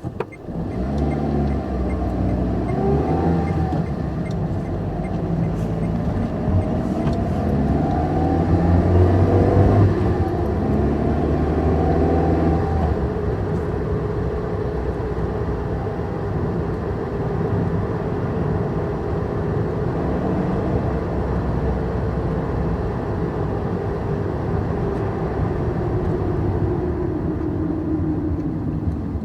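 A car engine pulling away, climbing in pitch again and again as it shifts up through the gears over the first dozen seconds. It then runs steadily at cruising speed, its tone slowly falling near the end.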